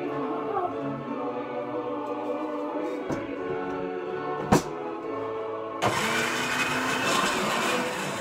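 Countertop blender running for about two and a half seconds, starting about six seconds in and stopping near the end, over background choral music. A single sharp knock comes about a second and a half before the blender starts.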